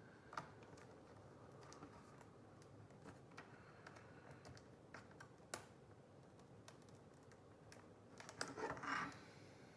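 Faint, scattered plastic clicks and ticks from handling and prying at a laptop's LCD panel and bezel, with a short scraping rustle near the end, over otherwise near silence.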